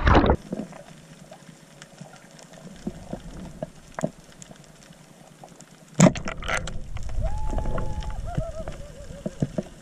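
Underwater sound picked up through an action camera's housing during a dive: muffled water noise with scattered clicks and crackles. A loud rushing burst comes at the start and again about six seconds in, and a wavering tone follows near the end.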